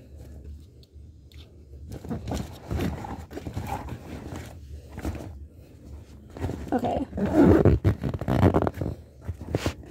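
A fabric travel bag rustling and bumping as it is pulled down from overhead, with handling noise on the phone. It gets louder and busier a couple of seconds before the end.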